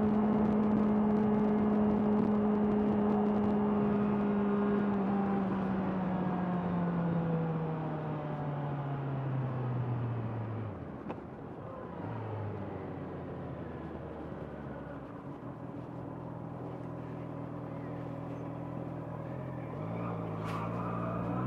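Honda CBR650R inline-four engine holding steady revs, then dropping steadily as the bike slows. It runs low and steady for several seconds, then revs rise sharply near the end as it accelerates again.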